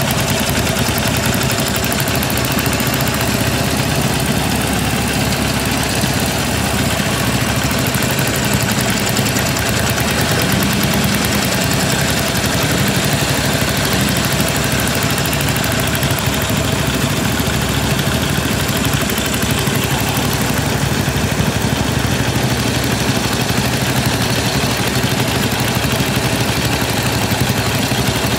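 Motorcycle engine idling steadily at an even pitch and level, with no revving.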